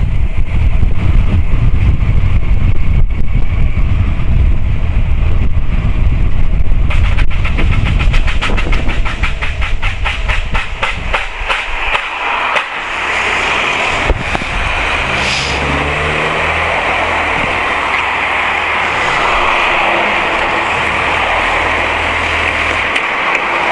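Wind rushing over a helmet microphone as a Honda CBF1000 is ridden. As the bike slows there is a fast regular clicking for a few seconds. About halfway through it settles to a steady hum of the inline-four engine idling at a standstill.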